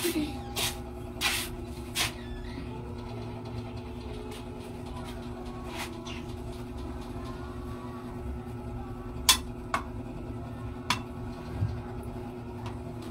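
A cooking utensil clinking and knocking against a metal pan several times while food is stirred, over a steady low hum.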